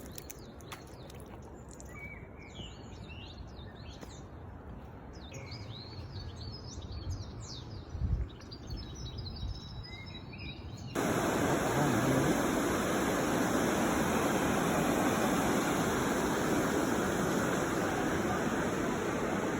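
Small birds chirping and calling over a quiet background, with a brief low thump about eight seconds in. About eleven seconds in it cuts abruptly to the loud, steady rush of flowing river water.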